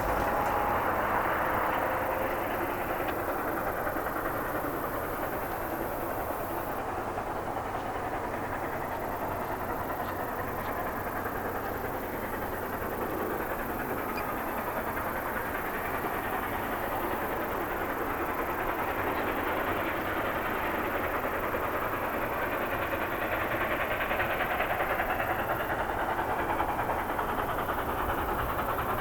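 A train rolling past on the rails: a steady rushing noise of wheels and running gear that swells a little near the end.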